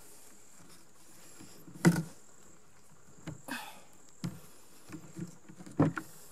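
Cord being drawn through and wrapped around a bundle of three logs in frapping turns: scattered short rubbing scrapes and knocks of rope on wood, the loudest about two seconds in and a few more near the end. A faint steady high insect drone runs underneath.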